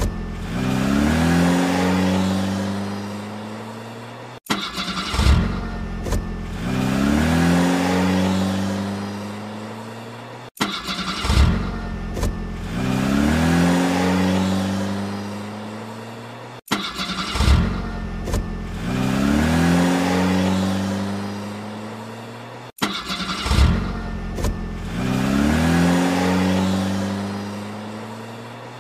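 Car engine sound effect looped: each pass opens with a few sharp knocks, then the engine revs up in a rising pitch and settles before fading out. The same clip repeats about every six seconds, cutting off abruptly between passes.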